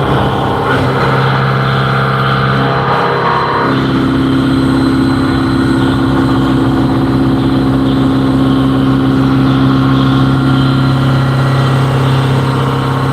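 Vertical machining centre (CNC mill) running while cutting a part: a steady machine hum, with a second, higher tone joining about four seconds in.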